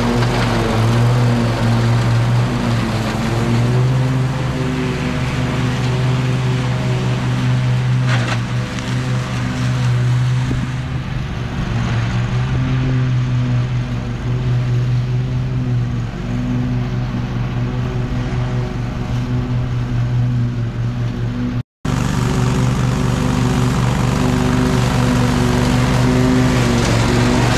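Husqvarna riding lawn mower's engine running steadily at high throttle while its deck cuts tall, thick grass.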